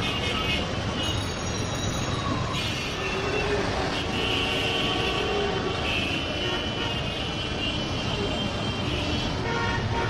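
Street traffic: a steady rumble of passing vehicles, with car horns tooting briefly now and then, clearest about four to five seconds in.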